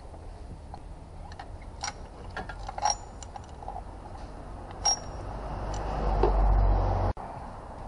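A few sharp metallic clicks and clinks as hands work parts and fittings on top of a diesel engine. They are followed by a rising rustling rumble that cuts off suddenly near the end.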